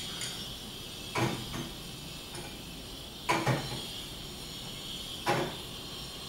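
Crockery being set into a dishwasher rack: three short knocks about two seconds apart.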